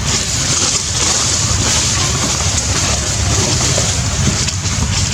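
Wind buffeting the microphone: a steady rushing hiss over a fluttering low rumble.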